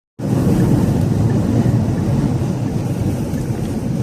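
Steady low rumble of a car travelling at freeway speed: road and wind noise.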